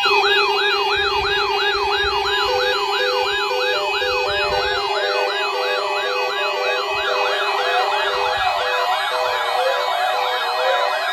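Several weather radio receivers sounding their alert alarms together, set off by the weekly NOAA Weather Radio tone alert test. There is a rising-and-falling siren about two and a half cycles a second, a second siren joins about seven seconds in, and a steady tone and a pulsing beep sound beneath.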